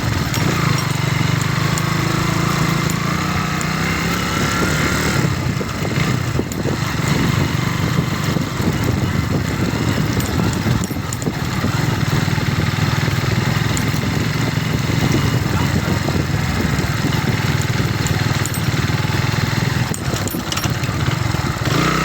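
Kawasaki B175TR trail motorcycle's single-cylinder engine running while the bike is ridden along a rough dirt track. The engine note eases off for a few seconds near the start, then holds steady, with occasional short knocks.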